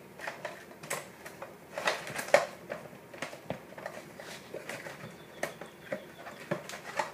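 Irregular clicks, taps and light knocks of the plastic parts of a Chrony F1 chronograph being handled and fitted together, with the sharpest knock about two and a half seconds in.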